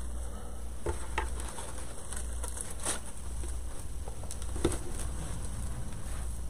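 Sprigs of artificial greenery being handled and trimmed: faint rustling of the plastic leaves with a few light clicks as the lighter leaves are cut off, over a steady low hum.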